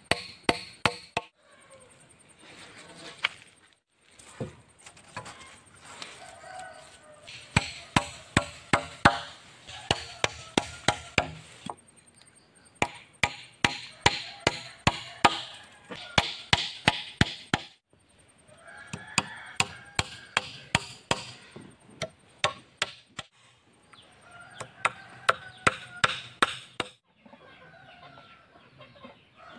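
Hammer blows on a wooden slat held against a round wooden pole, in quick runs of sharp knocks, several a second, broken by short pauses. The hammering stops shortly before the end.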